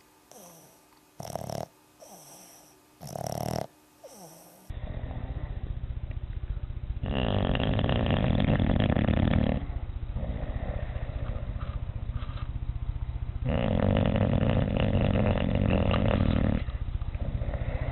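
Dogs snoring: two short snores in the first few seconds, then, after a cut, a louder dog snoring in two long breaths of about three seconds each over a steady background noise.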